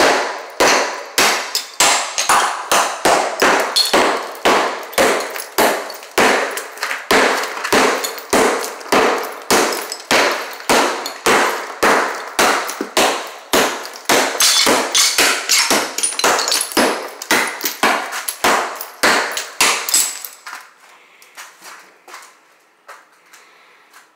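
Hammer blows knocking ceramic tile off a shower wall, sharp clanging strikes about two a second. They stop about twenty seconds in, leaving only a few faint knocks.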